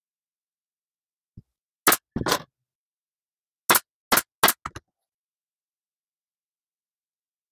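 Handheld staple gun firing staples into a stool's upholstery. The sharp shots come in two groups: a pair about two seconds in, then three more close together around four seconds in, with a couple of faint clicks after.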